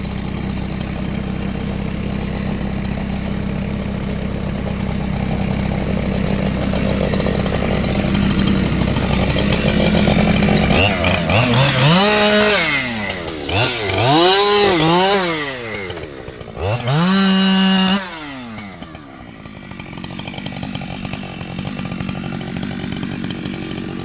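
Chainsaw engine running steadily, then revved up and down several times in quick swells about halfway through, with one rev held briefly high before it drops back to a lower, steady run.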